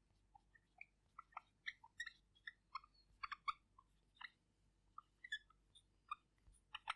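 Faint squeaks and taps of a marker pen writing on a whiteboard, in many short, irregular strokes.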